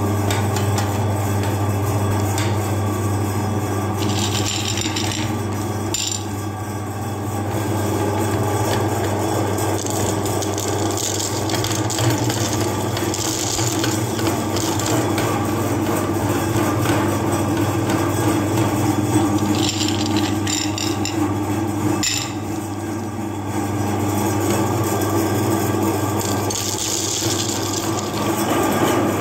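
Meat grinder motor running with a steady hum, its steel auger turning in the feed throat. Several times, hard candy-coated chocolates rattle and scrape against the metal as they are fed in and ground.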